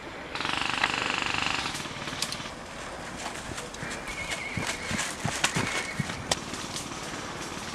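Airsoft electric gun firing a rapid full-auto burst of about a second and a half, followed by scattered sharp clicks and pops.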